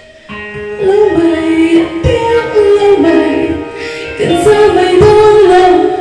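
A woman singing a melody into a handheld microphone. She pauses briefly about four seconds in, then sings on.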